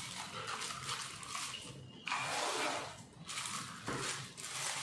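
Thin clear plastic bag crinkling and rustling in uneven bursts as it is handled and pulled off a takeaway drink cup.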